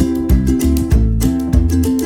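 Background music: plucked acoustic guitar played in a steady rhythm, with a bass line.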